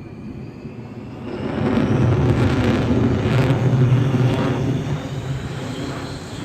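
Jet aircraft flying past: a heavy engine rumble that builds about a second and a half in, is loudest in the middle, and eases off near the end.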